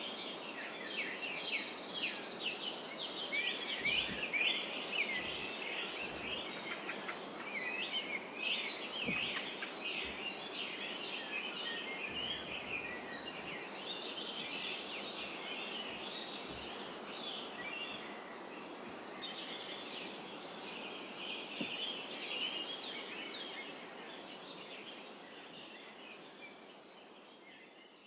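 A chorus of many small birds chirping and twittering together, with quick overlapping calls over a faint background hiss. The chorus thins out and fades away over the last few seconds.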